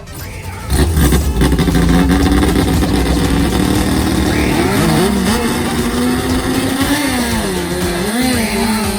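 Racing long-tail boat engines, Toyota 5K four-cylinder units, running hard at high revs. The sound comes in abruptly about a second in, and the engine pitch dips and climbs again a few times as the throttle is worked.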